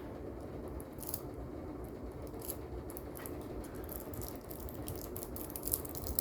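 Faint, scattered clicks and plastic crinkles of a Cat 6 LAN cable's jacket being peeled open by hand, over a steady low background hum.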